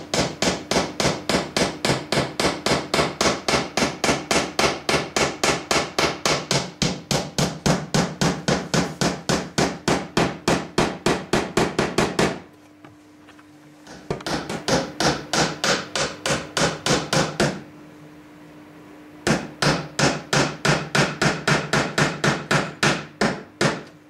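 Hammer driving nails through thin wooden roof panels into a birdhouse frame, in quick, light, even strokes about four to five a second. The strokes come in three runs with two short pauses.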